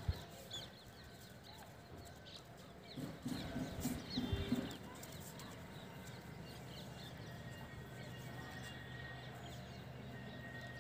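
Outdoor ambience with small birds chirping in short quick notes throughout, a sharp knock at the very start, and a louder burst of low, pulsing calls about three to four and a half seconds in. A steady low hum comes in from about seven seconds on.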